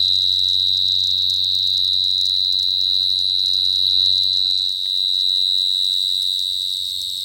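Cricket singing by rubbing its wings together: a continuous, steady, high-pitched trill.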